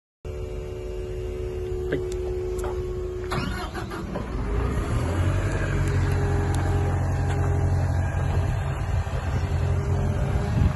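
Cat 320 hydraulic excavator's diesel engine running, with a few short knocks in the first few seconds. About five seconds in it gets louder and deeper, as when the engine takes on hydraulic load.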